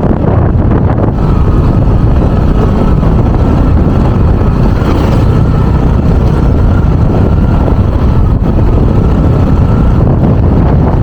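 Loud, steady wind buffeting and rumble on the microphone of a moving vehicle, with a faint steady whine running underneath.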